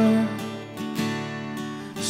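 Worship music: an acoustic guitar strumming chords between sung lines, after a held sung note that ends just after the start.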